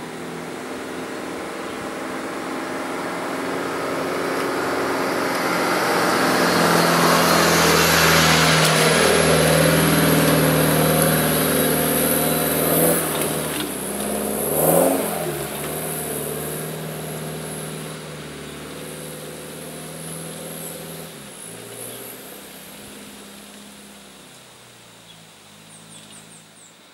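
Holden Colorado ute's turbo-diesel engine, running through a newly fitted 3-inch exhaust, drives past and pulls away up a dirt track. The sound builds to a peak, has a brief surge in engine note about halfway, then fades as the ute moves off.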